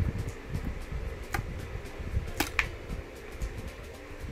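Scissors snipping through plastic zip ties: a few sharp snaps, one about a second in and two close together around two and a half seconds, with low handling rumble between.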